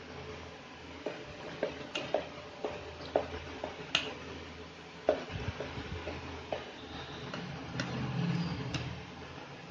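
A steel spoon stirring thick batter in a stainless steel bowl, with irregular sharp clinks as the spoon knocks against the bowl's side.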